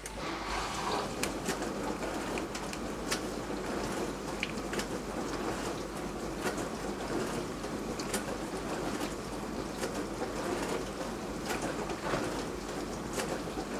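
Beko DWD5410W dishwasher's wash pump starting up and spraying water inside the tub: a sudden onset of steady splashing, dotted with irregular sharp ticks of spray hitting the door and racks.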